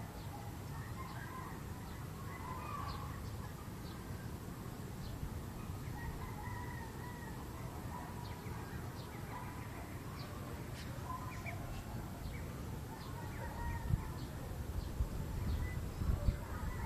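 Distant bird calls, scattered short calls and chirps, over a steady low outdoor rumble, with a few low knocks near the end.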